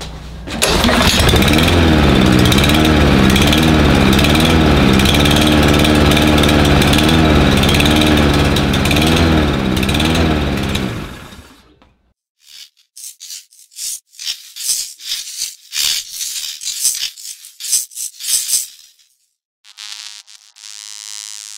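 Cub Cadet lawn mower engine running rough, its speed surging up and down about once a second, a sign of a dirty, clogged carburetor. It dies away about halfway through, and a short music sting follows.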